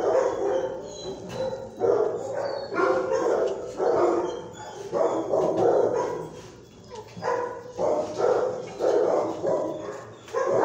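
Dogs barking in a shelter kennel, in bursts about once a second, with a short lull a little past the middle.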